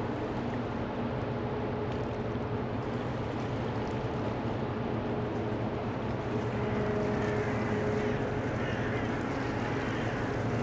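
Container ship's engines running as it passes, a steady low hum with a faint held tone above it, growing slightly louder about six seconds in.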